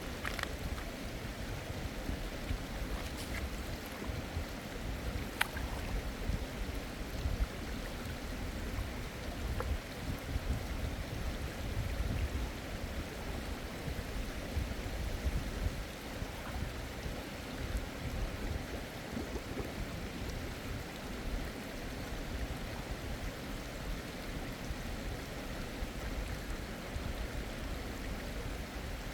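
Mountain stream flowing, a steady rush of water, with a few faint clicks in the first several seconds.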